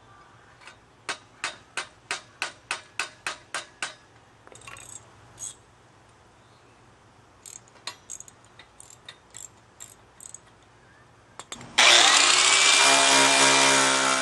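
A run of about a dozen sharp taps, roughly three a second, then scattered lighter clicks. About twelve seconds in, an angle grinder starts up loud, its pitch rising as the motor spins up, to grind off the end of the bike's rusted folding-hinge pin.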